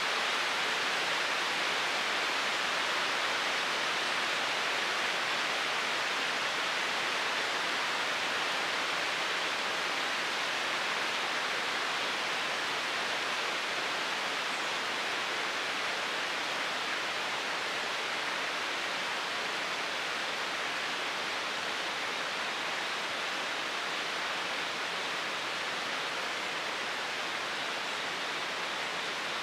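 A steady, even hiss that does not change, with no distinct calls, knocks or other events in it.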